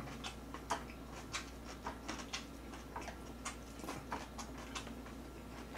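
Faint, irregular clicks and smacks of close-range eating: a mouthful of food being chewed, with chopsticks picking at the food.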